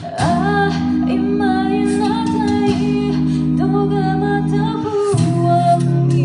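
A cappella group singing: a lead voice carrying a bending melody over sustained backing chords, with the chord changing about five seconds in.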